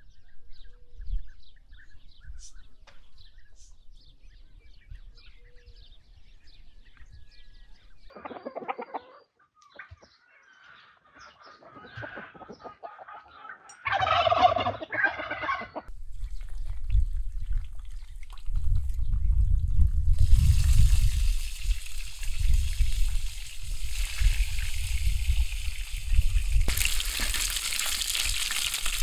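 Domestic fowl calling in a farmyard, with faint calls at first and a loud burst of calls about fourteen seconds in. From about sixteen seconds on, a steady rushing noise with a low rumble takes over and gets louder twice.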